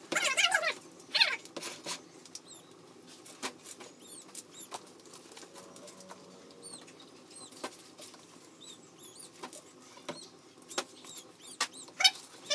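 Wood fire crackling with frequent sharp pops, and short squeaky chirps of uncertain source just after the start and again near the end.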